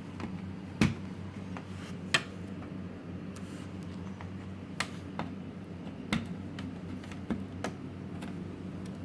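Scattered sharp clicks and taps from hands handling the cable connectors on a flat-screen TV's circuit boards, about six in all, over a steady low electrical hum.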